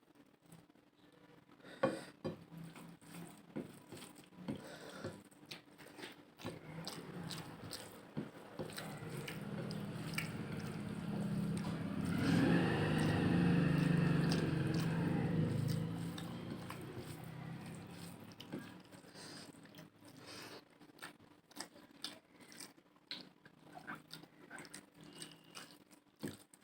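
Close-up eating sounds of a person eating curry and rice: wet chewing, lip smacks and small clicks that come irregularly. Partway through, a low droning sound swells up, grows loudest around the middle, then fades away.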